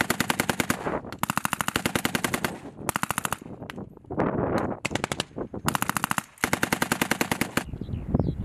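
Belt-fed machine gun firing several bursts of about ten rounds a second, each half a second to over a second long with short gaps between them. The firing stops shortly before the end.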